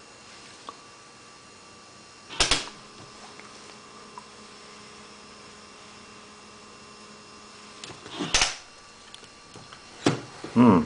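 Small electric motors of a fischertechnik walking robot humming faintly for about six seconds, started and stopped by a sharp clunk each time, while the robot fails to walk. Another knock and a short sound with a wavering pitch come near the end.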